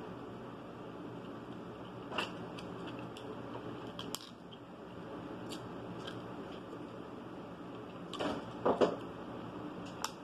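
Mussel shells clicking as they are handled and pried apart, with eating sounds, over a steady low room hum. A few short, sharp clicks are scattered through it, and the loudest cluster comes about eight seconds in.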